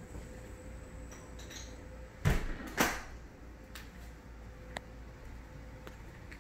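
Hinged back door pushed shut: two short thuds about half a second apart, a little over two seconds in.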